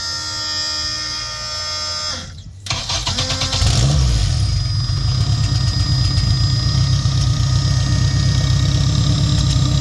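A steady whine of several fixed tones, then the turbocharged four-cylinder engine of a race-built Honda Civic starts about three seconds in and runs loudly at idle with a ragged, pulsing exhaust note.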